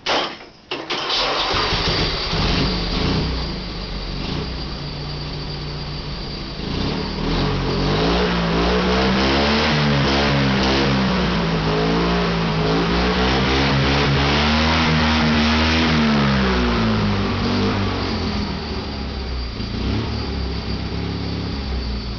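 Turbocharged twin-cylinder 18 hp Craftsman racing mower engine being started: a short burst of cranking, then it catches about a second in and runs. From about eight seconds in it is revved up and down several times, then settles back to a steadier run near the end.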